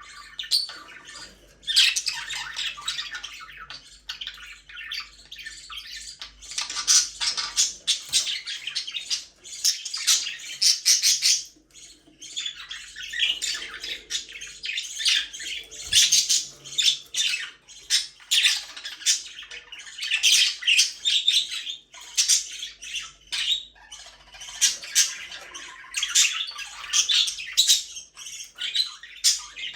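Budgerigars chirping and chattering in rapid, high-pitched bouts of a few seconds each, with brief lulls between them.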